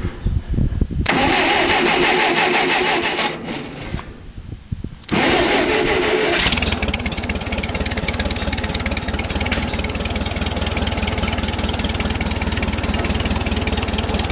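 Case 430 tractor's gasoline engine on a cold start: cranking and sputtering in two tries with a short lull about four seconds in, then catching about six and a half seconds in and settling into a steady run.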